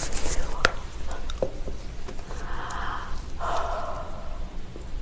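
Close-miked handling of a whole braised pig's trotter in disposable-gloved hands: a few soft clicks, then two rushing noises of about a second each, one straight after the other.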